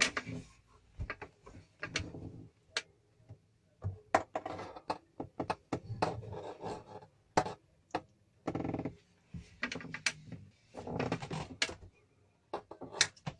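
Scattered clicks, taps and thunks of hands handling wires, a small switch and tools close to the microphone, with short stretches of lower rustling and handling noise between them.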